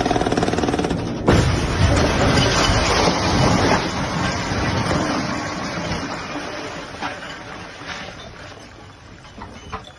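Excavator-mounted hydraulic breaker hammering rapidly on a concrete bridge deck. About a second in it is cut off by a sudden loud crash as the deck section gives way and collapses. The crash fades slowly over several seconds, with a few scattered knocks of falling debris near the end.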